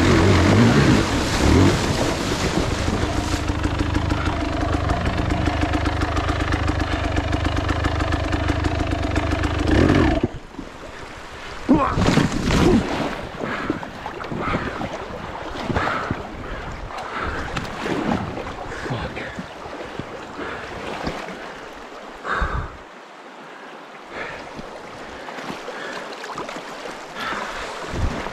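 Dirt bike engine running in the creek, cutting out suddenly about ten seconds in, followed by water rushing and splashing with irregular sharp splashes.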